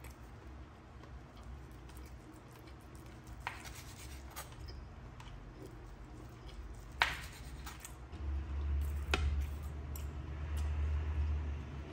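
Chef's knife cutting through a nori-wrapped rice roll on a wooden cutting board: a few separate sharp taps as the blade meets the board, the loudest about seven seconds in. A low rumble of handling comes in from about eight seconds.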